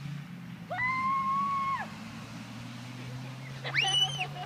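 High-pitched calls over a low steady hum: one held call lasting about a second, then a shriek that rises and falls near the end.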